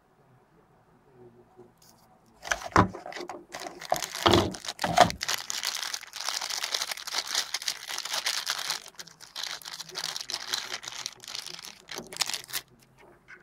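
Packaging being handled and crinkled while a new phone is unboxed. It opens with a few loud knocks and rustles about three to five seconds in, then steady crinkling and rustling that stops shortly before the end.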